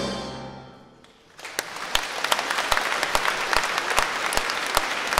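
The final chord of a bayan and accordion orchestra dies away in the hall's reverberation. After a moment of quiet, the audience breaks into applause about a second and a half in.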